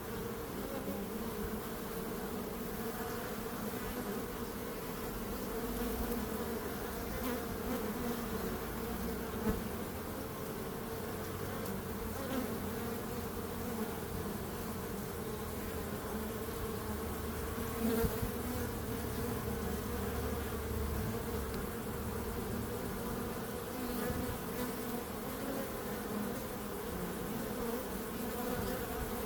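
Bees buzzing in a steady, wavering hum, with a few faint ticks.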